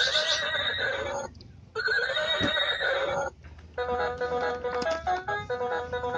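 Electronic sound chip of a plastic ride-on rocking horse toy playing a recorded horse whinny twice, then a simple electronic melody of short notes starting a little past halfway.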